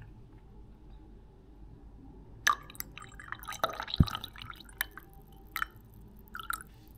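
Coffee poured from a coffee press into a ceramic mug: after a quiet start, about two seconds of splashing pour with a couple of sharp clinks, then three single drips falling from the spout into the cup near the end.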